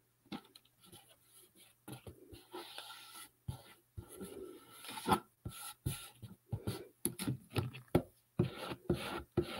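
Tissue paper rustling and being rubbed smooth by hand over a cardboard box during decoupage, with irregular light taps and knocks of tools on the cutting mat.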